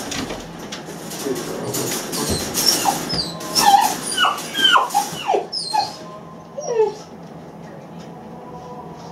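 Eight-week-old Great Dane puppy whining and yelping in distress at being left alone in its crate: a quick run of short, high, falling whines in the middle, with fainter whimpers near the end. Before them comes a few seconds of scraping and rattling as it paws at the wire crate door.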